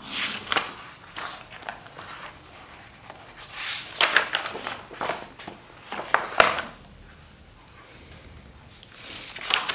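Paper pages of a printed booklet being turned and handled, rustling in several short bursts with a few sharp taps.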